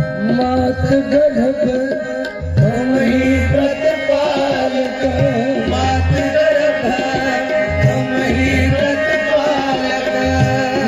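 Kirtan music: tabla playing over the steady held notes of a harmonium, the bass drum's repeated strokes bending up in pitch.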